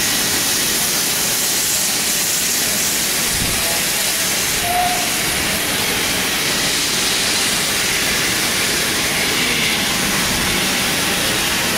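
Steady hiss of steam escaping from a GWR Hall class 4-6-0 steam locomotive standing in steam.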